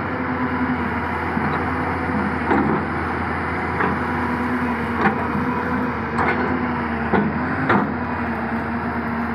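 Excavator's diesel engine running steadily, with about six sharp knocks in its middle stretch.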